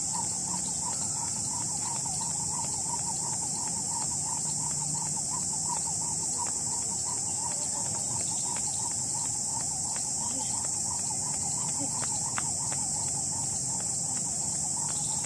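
Steady high-pitched insect buzz in trees, with a fast chirping repeating about three or four times a second. Faint light taps of a skipping rope striking the path.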